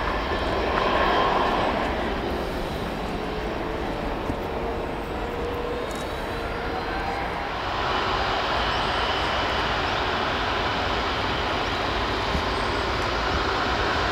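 Jet airliner engines running steadily: first an Airbus A320 with a faint drifting whine. Then, after an abrupt change about eight seconds in, the louder, hissier engine noise of an Airbus A330 widebody.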